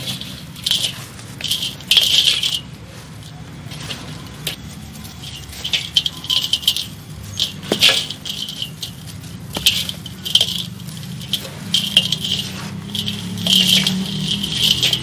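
Dry, dusty molded lumps crumbling in hands inside a steel bowl, the falling grit pattering and rattling on the metal. It comes in irregular gritty bursts with sharp clicks, about one every second or two.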